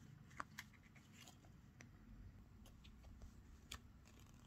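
Faint scattered clicks and taps of a ring-bound card memo pad being handled, its pages bent and flicked, the sharpest click about half a second in.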